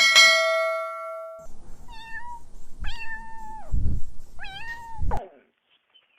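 A bell-like ding rings out at the start and dies away over about a second and a half. Then a kitten meows three times, with a low thud after the second and third meows.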